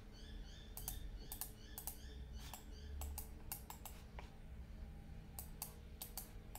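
Faint, irregular clicking of computer keyboard keys.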